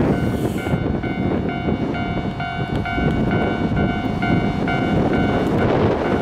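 Japanese level-crossing warning bell ringing, about two strokes a second, while a Keio Line train runs through the crossing.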